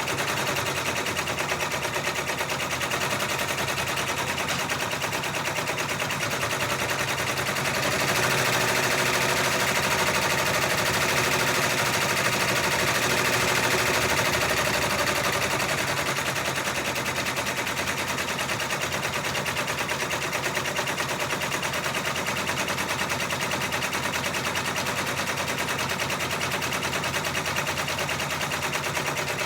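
Six-needle embroidery machine stitching out a monogram: a fast, steady clatter of needle strokes that gets somewhat louder for several seconds about a third of the way in.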